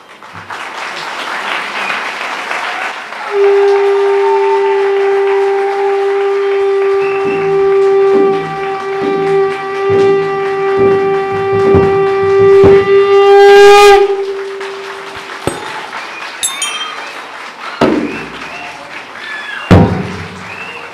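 Applause, then a wind instrument sounds one long steady horn-like note for about ten seconds over drum beats about two a second, ending in a quick upward slide. Applause and a few separate drum strokes follow.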